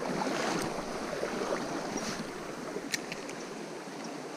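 Steady rush of a small stream's running water, with a few faint clicks.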